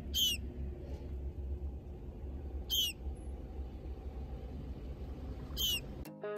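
A fledgling songbird calling three times, evenly spaced about three seconds apart: short, very high, thin calls over a low steady rumble. Guitar music comes in right at the end.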